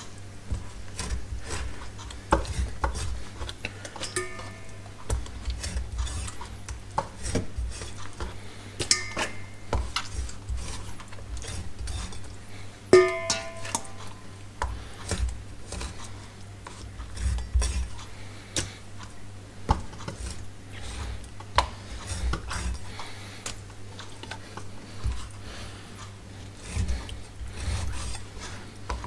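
Chinese cleaver knocking repeatedly on a bamboo cutting board while scoring raw chicken wings, two cuts on each side, with the handling of wings in a stainless steel bowl. A few brief metallic clinks from the bowl ring out, the loudest about 13 seconds in.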